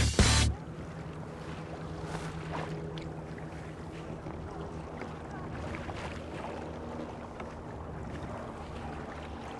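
Music cuts off about half a second in, leaving open-river ambience: wind on the microphone and water lapping around kayaks, with a faint steady low hum underneath.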